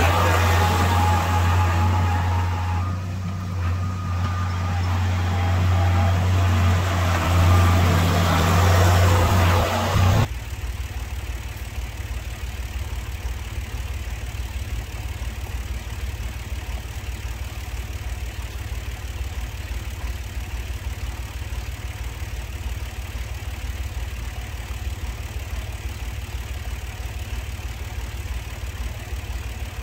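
Tractor engine running, loud with a strong low hum for about ten seconds, then dropping abruptly to a quieter, steady idle.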